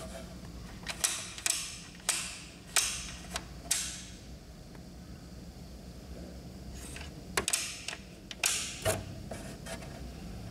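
Clicks and short creaky scrapes from the exposed plastic paper-feed parts of an HP Deskjet 3055A inkjet printer being moved by hand. About six come in the first four seconds, then after a pause about four more.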